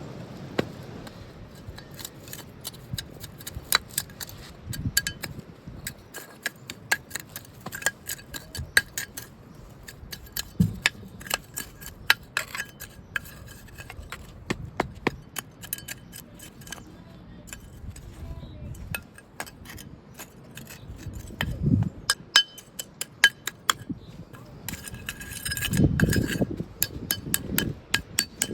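Brick pavers clinking and knocking against one another as they are handled and set in place, in frequent irregular sharp clicks, with a few duller thumps later on.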